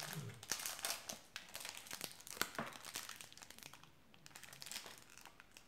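Thin plastic candy wrapper crinkling and tearing as it is peeled open by hand: a rapid run of crackles that thins out after about three and a half seconds.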